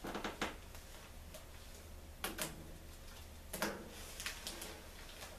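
Rubber bands being stretched and snapped onto a bell pepper by hand, a few short sharp snaps and clicks spread out over a few seconds.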